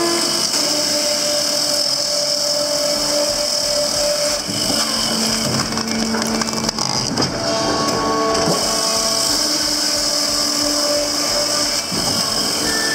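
Firewood processor running, its ram pushing log sections through a multi-blade splitting wedge. A steady high whine sits over the machine noise, with humming tones that shift in pitch every second or two.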